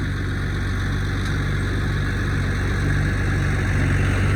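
Farm tractor engine running steadily nearby, getting slightly louder near the end.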